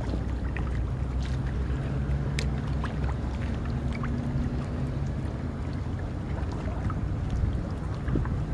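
Wind buffeting the microphone in a steady low rumble, with small waves lapping and ticking against the shore rocks. A faint low drone comes in for a few seconds in the middle.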